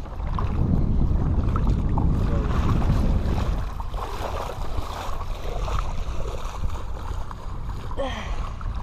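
Wind buffeting the microphone in the open, a low rumble that is heaviest for the first three seconds or so, over small splashes of feet wading through ankle-deep water.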